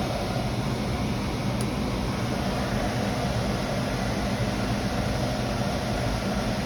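Steady drone of running machinery with a low electrical-type hum, unchanging throughout.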